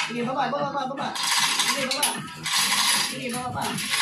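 Manual chain hoist being worked with a heavy engine hanging from it: the hand chain rattles and clinks through the hoist in runs of about a second each, with a ratcheting click, pausing briefly between pulls.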